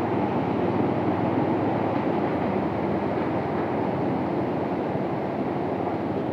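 Motorcycle crossing a suspension bridge, its tyres rattling over the bridge's slatted steel deck in a steady, rapid clatter.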